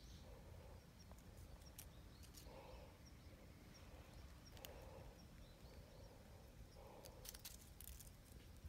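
Near silence: faint outdoor ambience with a few soft bird chirps and some light clicks.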